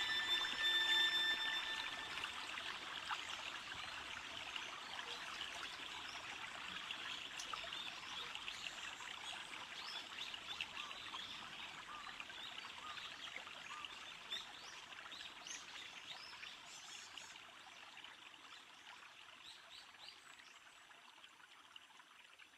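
Soundtrack texture of trickling, water-like noise full of small bright drips, fading slowly out. At the start a held cluster of steady tones dies away within the first two seconds.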